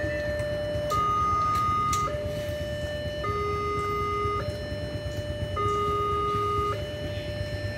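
Railway level-crossing warning alarm sounding, an electronic signal that alternates between two tones, each held about a second, warning that a train is approaching. A steady low rumble runs underneath.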